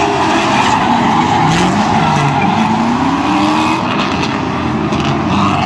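Two drift cars sliding in tandem at full throttle, their engines revving up and down and their tyres screeching and smoking.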